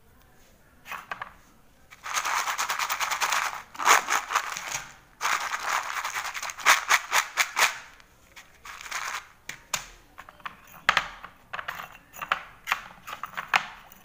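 Broken slate pencil pieces clattering against each other in a bowl as a hand stirs through them: spells of dense, rapid clicking. Later come slower, scattered clicks and light knocks as the pieces and small clay cups are handled.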